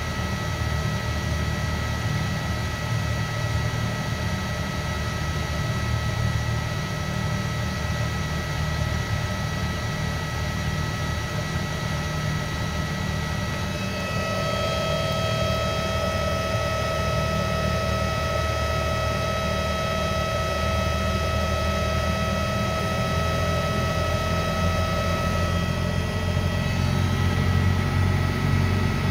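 Electric motor powered by a 220 V, 3.7 kW variable frequency drive, running with a steady electrical whine of several high, fixed tones over a low rumble. About halfway through, more tones join in and the whine gets a little louder. The owner suspects the drive's low output voltage is overloading the motor.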